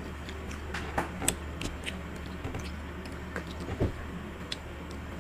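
A child chewing a chocolate-and-almond-coated ice cream bar: scattered small clicks and smacks of eating, the most noticeable about a second in and near the end, over a steady low hum.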